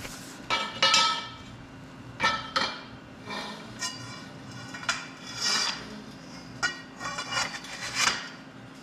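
A steel bracket and steel electrical conduit tubes knocking together as they are fitted: about a dozen sharp metallic clanks at uneven intervals, each ringing briefly.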